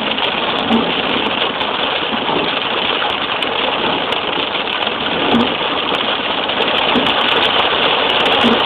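Steady rushing noise of a car driving on a wet road in the rain, heard from inside the cabin: tyre spray and rain mixed with the engine, with a few faint thumps.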